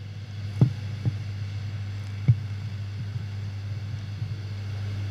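Steady low electrical hum from the hall's microphone and PA system, with three short soft thumps in the first two and a half seconds.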